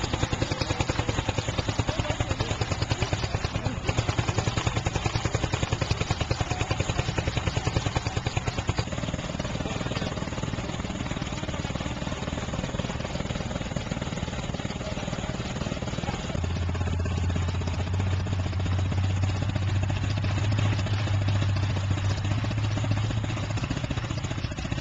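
Big petrol chainsaw engine running with a fast, rapid firing beat. About nine seconds in the sound changes to a smoother engine drone, and later a steady low hum joins it for several seconds.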